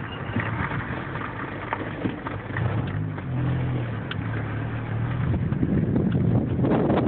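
Car on the move, with road and wind noise and a few short, faint high squeaks from the passenger-side front wheel area, an unexplained squeak there. An engine hum comes up in the middle, and the road and wind noise gets louder near the end.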